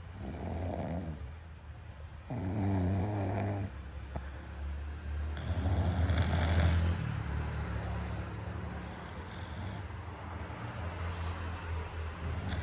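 Snoring: three loud snores in the first seven seconds, each lasting a second or so, followed by softer, steadier snoring breaths.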